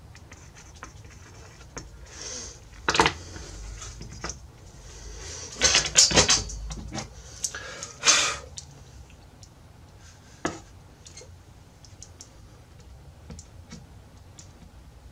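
Scattered light clicks, taps and short scrapes from small hand tools and wood pieces being handled while fitting a guitar rosette, with a sharp click about three seconds in, a busier cluster about six seconds in and a louder scrape about eight seconds in.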